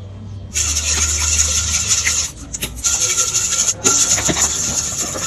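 A spoon scraping and stirring in a stainless steel mixing bowl, a steady rasping that starts about half a second in and drops out briefly twice.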